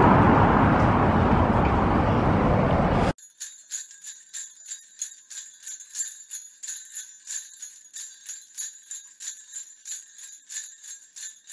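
Wind buffeting the microphone for about three seconds, then a sudden cut to jingle bells shaken in a steady rhythm, about three shakes a second, thin and bright with no low end.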